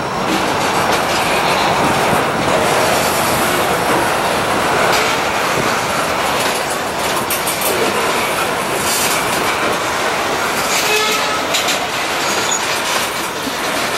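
Freight train rolling past close by: a steady rumble of steel wheels on rail, with scattered clicks of wheels crossing rail joints and a brief, faint wheel squeal about eleven seconds in.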